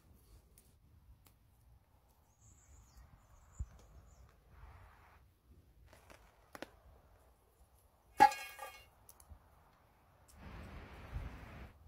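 Faint small taps and handling sounds, then a sharp metallic clink with a short ring about eight seconds in: a metal spatula striking a cast iron skillet. A short stretch of hissing noise comes near the end.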